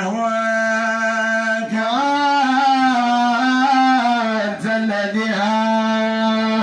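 Men singing a Moroccan Sufi madih, a devotional praise song, into a microphone, taking turns. The voice holds long notes with wavering melismatic turns, with short breaths between phrases about two and about four and a half seconds in.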